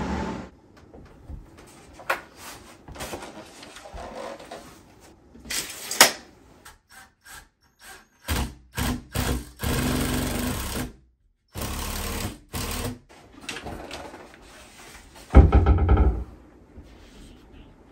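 Cordless drill running in short bursts, driving fasteners into drywall, with knocks and handling sounds between. A heavy bump near the end as a framed mirror is set against the wall.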